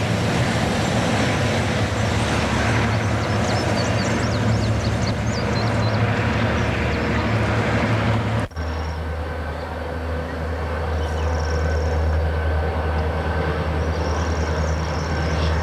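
Diesel locomotives running with a steady low engine drone and rail noise, with scattered high squeals a few seconds in. The sound cuts off abruptly about eight and a half seconds in and is replaced by another steady engine drone with a faint high whine.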